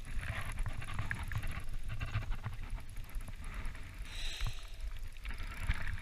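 Wind rumbling on the camera's microphone, with scattered small knocks and rustles of handling.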